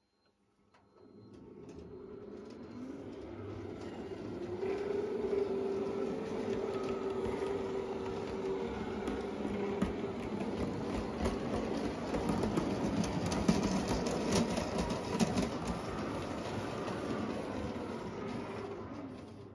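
O gauge model train running on the track: a steady electric motor whine with wheels rumbling and clicking over the rail joints and points. It builds up over the first few seconds, carries a run of sharp clicks in the second half, and fades near the end.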